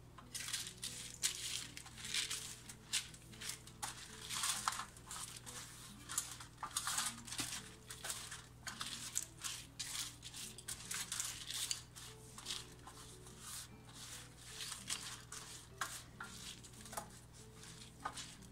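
Silicone spatula stirring washed raw rice and whole spices around a metal baking pan: irregular scraping and rustling of the grains over the pan.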